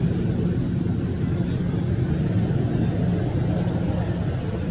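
Steady low rumble of outdoor background noise, even throughout, with faint high ticks above it.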